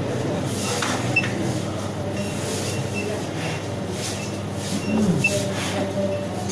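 Steady background hum and hiss, with a few faint short beeps, likely from the karat analyzer's keypad as its button is pressed and the display changes readings.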